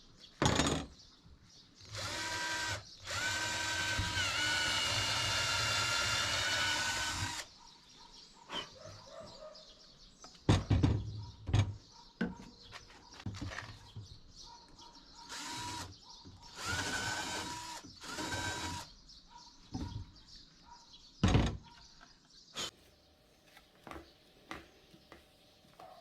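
Small electric power tool running in bursts, the longest about five seconds, its whine dipping briefly in pitch under load. Sharp knocks come between the runs.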